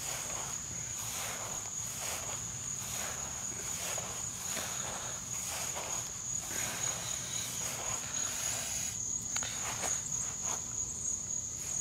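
Footsteps of sneakers on thick, short-cut Bermuda grass: soft, even swishing steps, about one every 0.7 seconds, that stop near the end. A steady high-pitched trill of crickets runs underneath.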